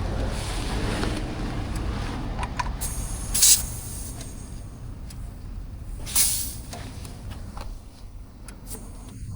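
Electronic tyre inflator working on a motorbike tyre valve: a hiss of air, then two short, sharp bursts of air about three and a half and six seconds in, over a steady low rumble.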